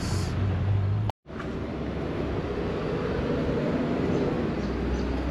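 Steady outdoor street background noise with a low rumble, broken by a brief dropout to silence about a second in; the rumble grows a little stronger near the end.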